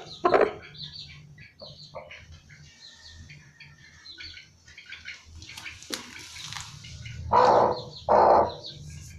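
Broody Aseel hen sitting on eggs giving short, harsh calls: one just after the start and two loud ones near the end. These are a broody hen's warning when disturbed on the nest. Faint high chirps come and go throughout.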